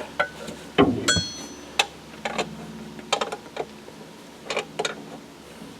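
Scattered metallic clicks and knocks of hand tools working on a diesel engine's belt drive, with one short metallic ring about a second in.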